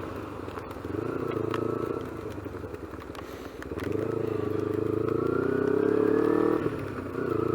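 250cc motorcycle engine pulling under way, its pitch climbing steadily through a gear for a few seconds, then dipping briefly at a gear change near the end before picking up again. A few light ticks sound in between.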